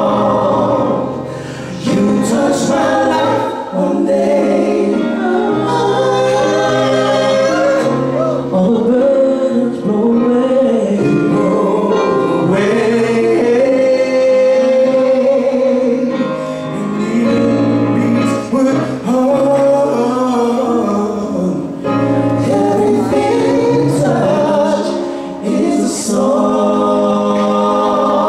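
Gospel vocal group singing live in multi-part harmony, several voices holding and moving notes together.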